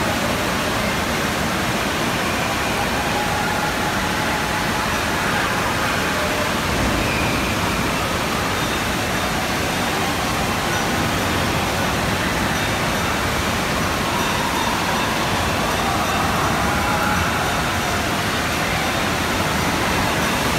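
Steady din of an indoor waterpark: rushing and splashing water with faint distant voices of a crowd.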